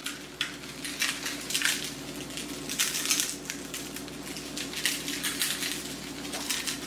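Aleppo pepper flakes sprinkled from a shaker onto raw chicken: a run of short, irregular, hissy shakes, over a steady low hum.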